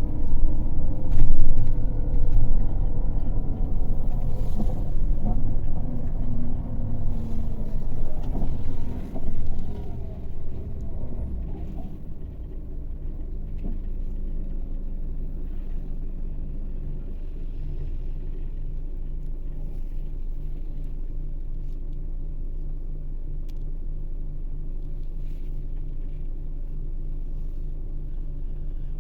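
Diesel engine of a Scania K400 coach, an inline six, running hard with its revs falling over the first ten seconds or so. From about twelve seconds in it settles into a steady, quieter running note.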